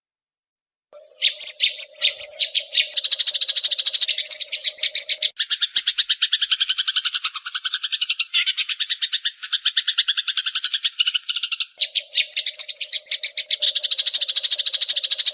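A songbird singing a fast chattering trill of sharp, evenly repeated high notes. It starts about a second in after silence and runs on with the note pattern shifting, over a steady lower tone that drops out in the middle and returns.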